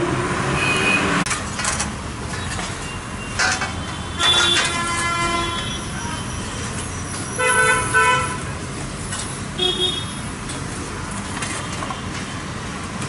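Vehicle horns honking from street traffic: a long honk about four seconds in, another near eight seconds and a short one near ten seconds, over steady traffic noise. A couple of sharp knocks sound in the first few seconds.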